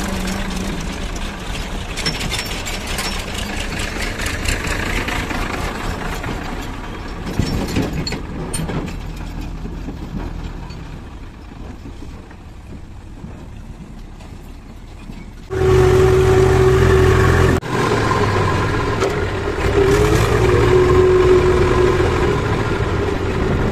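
Diesel engines running: a JCB 3DX backhoe loader's engine with a tractor idling close by, easing off for a few seconds in the middle. About two-thirds through, a much louder tractor diesel engine heard from the driver's seat cuts in suddenly with a steady hum, breaks off for a moment, then runs on.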